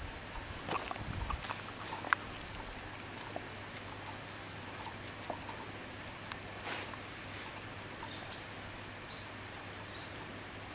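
A shiba inu sniffing and licking a printed paper photograph held to its nose: small clicks, rustles and short sniffs, with some low handling thumps early and a sharp click about two seconds in. A few short, faint high chirps come near the end.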